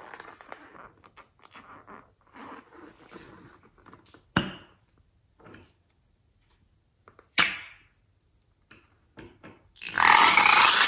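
Rubber balloon squeezed and rubbed between fingers, with two sharp snaps, one as scissors snip it open. Near the end, the balloon's liquid contents gush out and splash into a glass bowl of slime.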